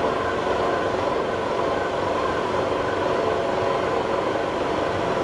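Heavy machine-shop machinery running: a steady mechanical drone with several steady whining tones over it, and no knocks or cutting impacts.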